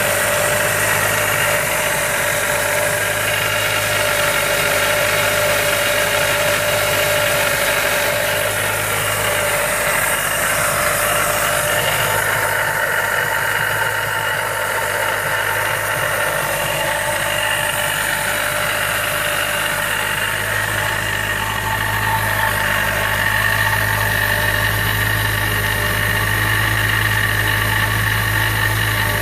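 Mazda Miata engine with a Jackson Racing M45 supercharger running steadily, with a steady whining noise over the engine note. The owner calls it awful bearing noise and suspects bad supercharger bearings.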